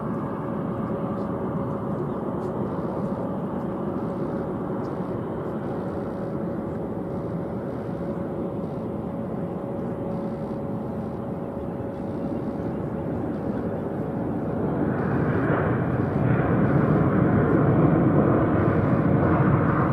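Rolls-Royce Trent XWB engines of an arriving Airbus A350-900 jet airliner, a steady rushing jet noise that swells louder about fifteen seconds in.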